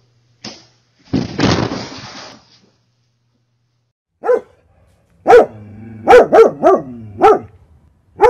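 A dog barking: a single bark, then a quick run of about five barks, then one more at the end. Each bark drops in pitch as it ends. A short rough noise comes about a second in.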